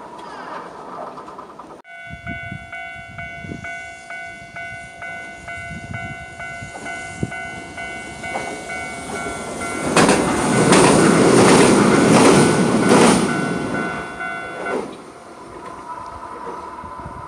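Level-crossing warning bell ringing in even, repeated strokes while a Hiroden tram-train approaches. The train passes loudly over the crossing for about four seconds in the middle, wheels clattering over rail joints. The bell stops soon after it has gone by.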